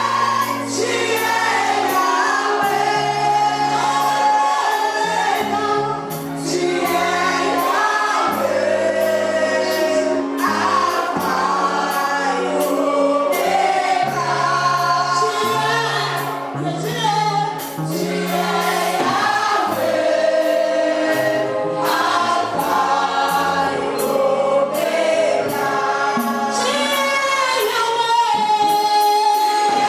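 Gospel music: a choir singing with a band, over a moving bass line and a steady drum beat.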